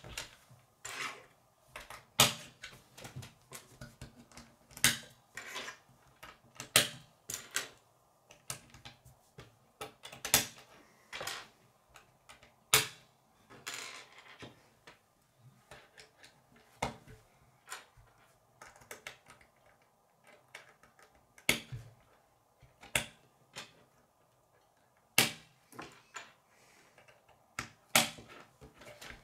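K'nex plastic rods and connectors being snapped together and set down by hand on a wooden surface: irregular sharp clicks and taps, several a second at times, with short pauses between.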